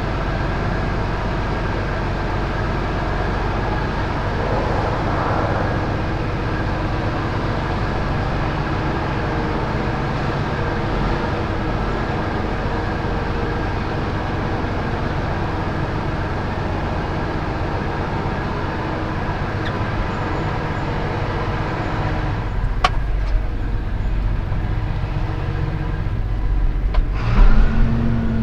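Tractor engine running steadily under load, a continuous drone. There is a sharp click about 23 seconds in, and the engine note changes near the end.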